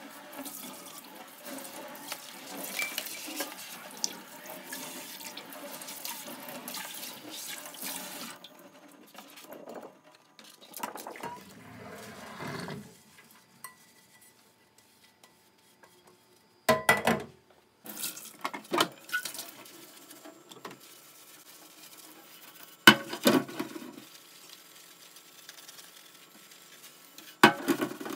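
Kitchen tap running into a stainless-steel sink as a plastic cutting board is rinsed, the water running for about eight seconds and again briefly later. After a quiet gap come a few sharp clanks of a frying pan and dishes knocking in the sink.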